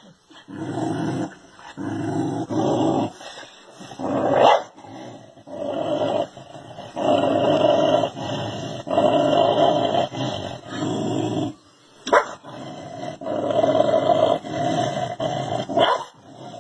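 Dog growling in repeated sustained stretches, a few long, broken by three short sharp barks. It is the threat growl of a dog facing its own reflection in a mirror, which it takes for a rival dog.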